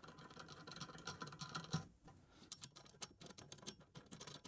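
Faint clicking and ticking of plastic handles being turned onto their bolts on a slab-flattening mill's router carriage. A quick run of small clicks comes in the first two seconds, then scattered ticks.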